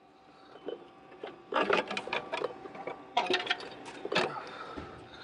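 Metal clinking and rattling in two flurries, about a second and a half in and again around three seconds in, as the 2.0L turbocharger is worked loose and wiggled against the surrounding exhaust parts to get it out of the engine bay.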